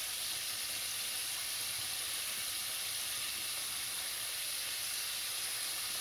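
Chicken pieces deep-frying in a pot of hot oil, a steady sizzling hiss.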